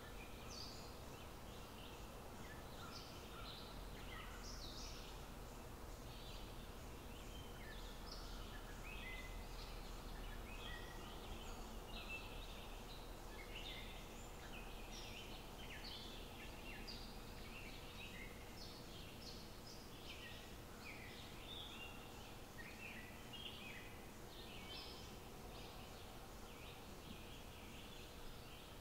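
Birds chirping and calling in many short, irregular notes, over a low steady rumble.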